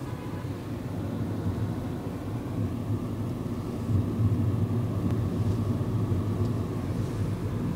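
Steady low rumble of a car's engine and road noise heard inside the cabin, a little louder from about four seconds in.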